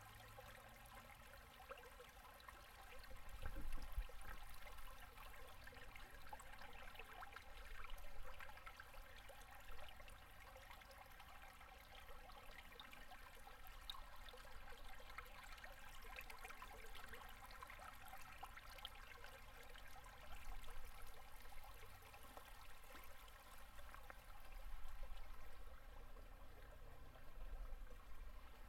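Shallow winter river gurgling and trickling over and under its ice, faint, swelling a little now and then.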